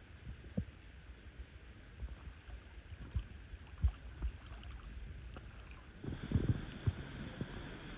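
A kayak being paddled on a lake: faint water sounds from the paddle strokes, with scattered low thumps. About six seconds in, a steadier rushing noise comes in along with a brief cluster of thumps.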